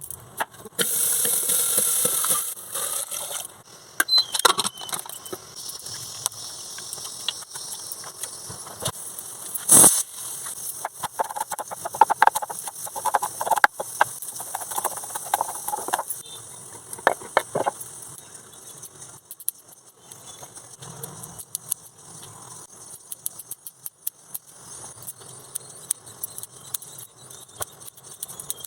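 Metal kitchen utensils and pots clinking and tapping in irregular bursts during food preparation, with a stretch of hissing about a second in.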